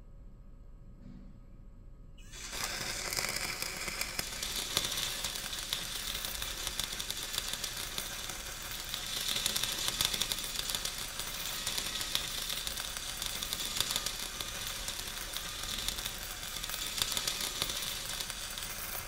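Simulated stick-welding (MMA) arc sound from a Soldamatic augmented-reality welding trainer: a steady crackling sizzle, like frying, that starts abruptly about two seconds in.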